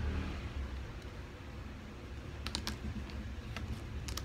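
Small plastic building bricks clicking and clattering as they are picked up and pressed together by hand, with a few sharp clicks in the second half, over a steady low background rumble.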